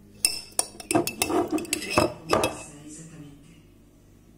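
A metal spoon clinking against a container as jam is scooped out: a quick run of clinks with short ringing over the first two and a half seconds, then quieter.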